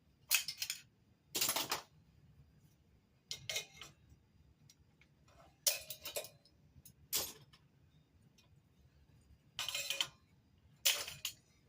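A series of about seven short metallic clanks and rattles, one every second or two: locking pliers (Vise-Grips) being popped open with a homemade steel lever and handled.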